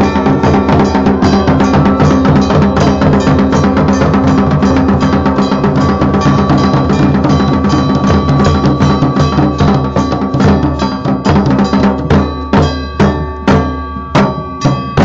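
A traditional Pahari band's dhol and nagara drums beat fast and dense under steady held melody tones. About twelve seconds in, the playing thins out into separate loud drum strokes, roughly one or two a second.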